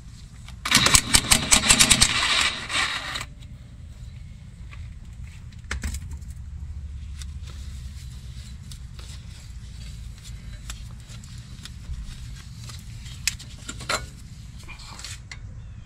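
Cordless impact wrench hammering in a fast, even rattle for about two and a half seconds, starting just under a second in, as it spins out a 12 mm bolt at the front strut. After it stops, faint clicks of small metal parts being handled.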